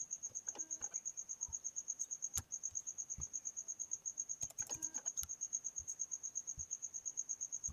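Cricket chirping steadily: a high-pitched trill of rapid, evenly spaced pulses that never breaks, with a few faint clicks.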